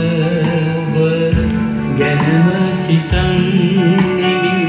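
A song with guitar and singing playing from hi-fi loudspeakers driven by a Sansui AU-D707G Extra amplifier.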